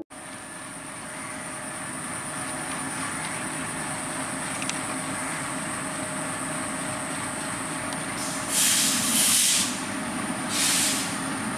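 WDM-3A diesel locomotive hauling an express train, approaching slowly with its engine running steadily, over a constant high-pitched whine. Short loud hisses come about two-thirds of the way in and again near the end.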